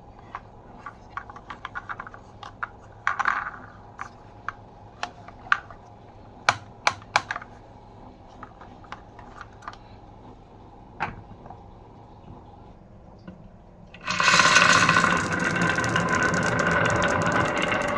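Glass marbles clicking and tapping along a marble run track, scattered single clicks. About fourteen seconds in, a loud continuous rattle starts as marbles roll and clatter through the track together.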